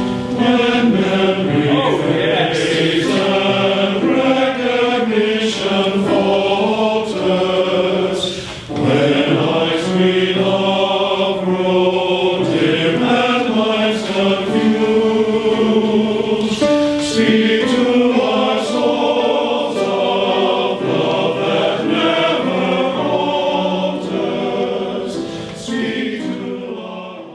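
Choir singing in harmony, several voice parts holding and moving through sustained chords; the singing fades out over the last few seconds.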